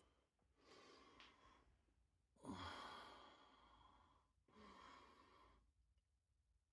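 A person breathing out in three long, faint sighing breaths, the middle one the loudest.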